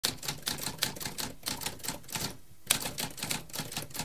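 Typewriter typing: rapid, irregular keystrokes, with a short pause a little after two seconds in followed by a sharp strike.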